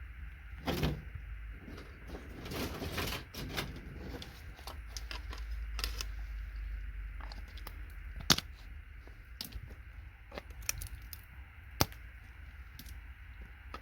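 Scattered sharp clicks and knocks of tools and small metal parts being handled while circuit boards are stripped for scrap, with a stretch of scraping a couple of seconds in and two sharper knocks later on.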